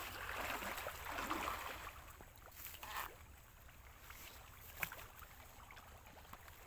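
Soft rustling and handling noise as a freshly caught catfish is held and moved over grass, strongest in the first two seconds, with a short rustle about three seconds in and a few light clicks near the end.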